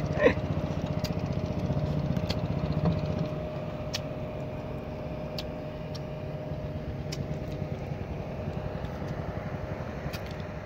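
Boat engine idling steadily with a fast, even chugging, a little quieter after about three seconds, with a few faint clicks.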